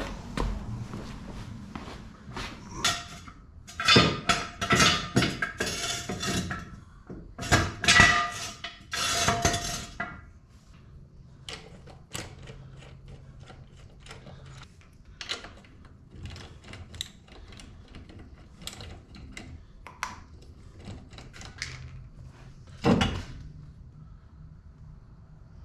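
Metal tools and wheel hardware clanking and clinking while a wheel is being taken off a side-by-side. A dense run of ringing metal knocks comes in the first ten seconds, then scattered light clicks, with one louder knock near the end.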